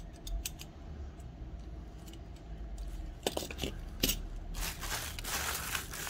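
Die-cast toy cars being handled: a few small metal clicks and clinks, a cluster of sharper knocks about three to four seconds in, then a longer scraping noise near the end.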